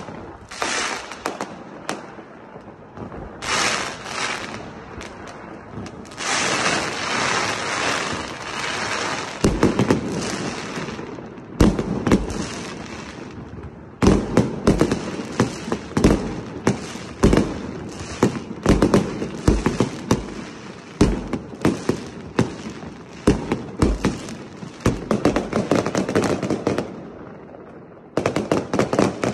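A close fireworks display: long hissing, crackling stretches in the first ten seconds or so, then a rapid run of sharp bangs and deep thuds as shells burst overhead, with a short lull and more bangs near the end.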